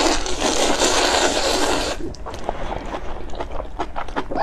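A person slurping a big mouthful of Buldak spicy fire noodles in one long, loud slurp that stops about two seconds in, followed by quick wet chewing and smacking clicks.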